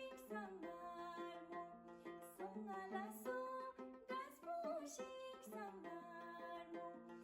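Soft background music led by a plucked string instrument, repeating a short melodic phrase.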